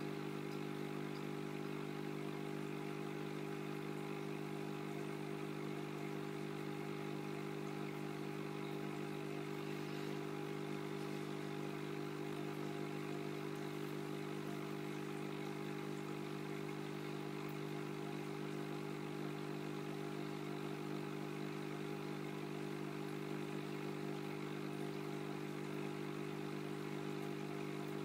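Steady, unchanging electrical hum of aquarium equipment, a low drone made of several even tones with a faint hiss above it.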